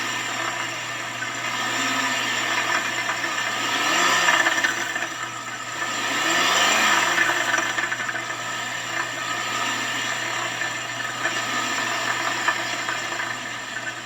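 GMC Acadia's engine running and being revved up and down a few times, with a knocking rattle. The owner wonders whether the inside of the catalytic converter has broken into small pieces.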